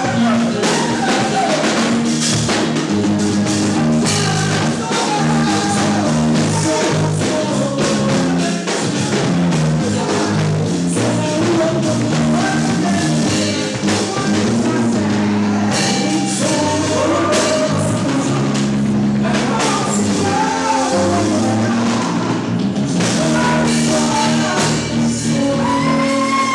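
Music with singing over a bass line and percussion, at a steady, loud level.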